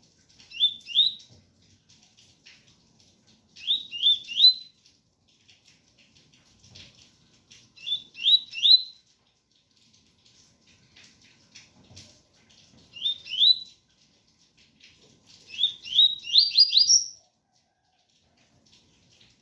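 Double-collared seedeater (coleiro) singing the 'tui tui' song: short phrases of two or three quick rising whistled notes, repeated every few seconds, with a longer run of about five notes near the end. A faint patter of rain lies underneath.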